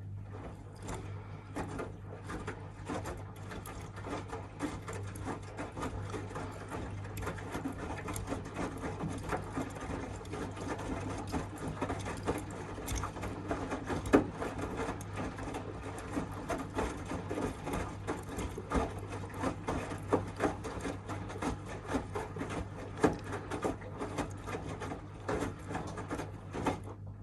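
Miele W1 washing machine running: a steady low hum with many irregular small clicks and knocks, one sharper knock about halfway through.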